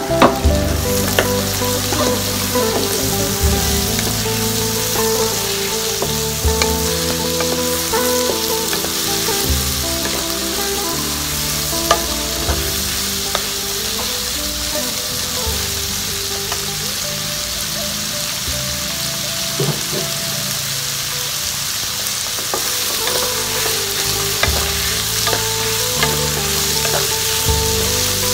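Petai (stink beans) and pounded chili and shallots sizzling in hot oil in a pan as they are stirred, with a few sharp clicks of the utensil against the pan.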